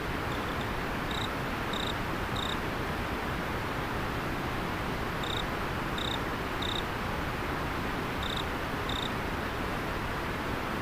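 River water flowing steadily, with an autumn insect chirping in short high groups of two or three chirps about every three seconds.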